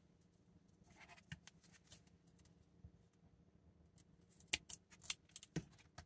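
Hands handling a roll of tape and small 3D-printed plastic parts: a soft rustle with light clicks about a second in, then a quick cluster of sharp clicks near the end. A faint steady hum lies underneath.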